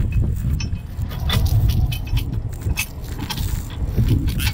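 Heavy steel recovery chain clinking and rattling in short, irregular clinks as it is handled, over a steady low rumble of strong wind on the microphone.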